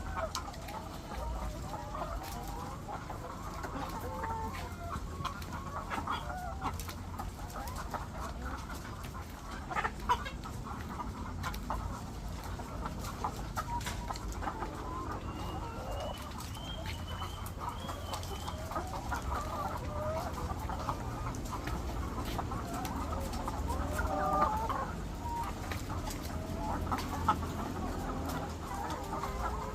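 A flock of layer hens clucking, with many short overlapping calls and a few sharp clicks, over a steady low hum.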